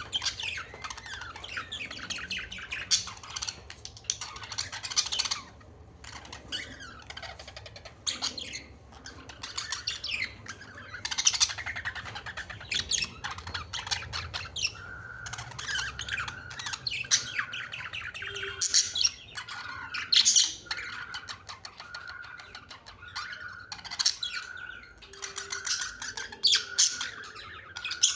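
A flock of small pet birds chirping and squawking, many short calls overlapping without a break, with a run of short repeated notes in the second half.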